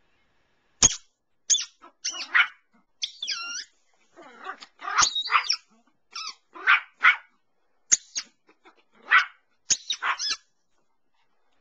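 Toy Yorkshire terrier play-barking at a toy held out to it: a string of short, sharp, high-pitched barks and yips, about a dozen, with brief pauses between them.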